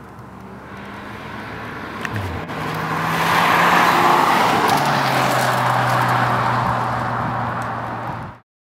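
A silver B8 Audi sedan drives up and passes close by, its tyre and road noise building to a peak about four seconds in and then fading. The engine note drops in two steps along the way, and the sound cuts off abruptly near the end.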